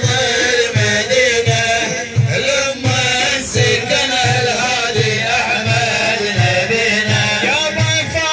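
Middle Eastern devotional music: a wavering, ornamented melody over a steady low beat.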